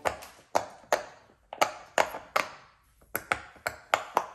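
Silicone Among Us-shaped Pop-It fidget toy having its bubbles pressed one after another, giving a string of sharp pops about two or three a second.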